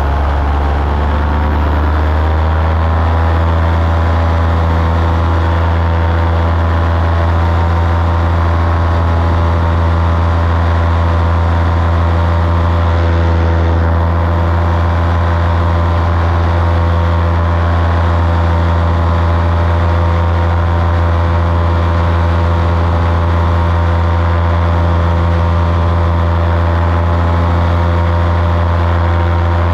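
Small aircraft engine running loud and steady in flight, its pitch rising a little over the first couple of seconds and then holding even.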